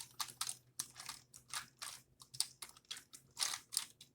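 Hands rummaging through packaging inside a cardboard box: irregular crackling and rustling of plastic and cardboard as the marble-run parts are pushed about.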